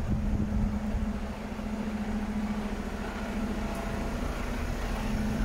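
Mercedes-Benz Arocs 2648's straight-six diesel engine idling with a steady low hum.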